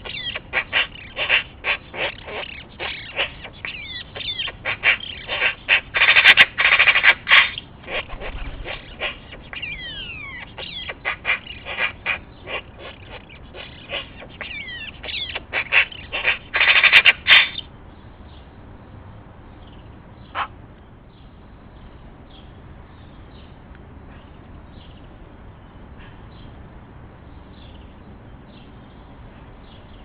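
Eurasian magpie chattering close by: a rapid, harsh rattle in repeated bouts, loudest around 6–7 s and 16–17 s. The chatter stops suddenly a little past halfway, leaving faint high chirps and one click.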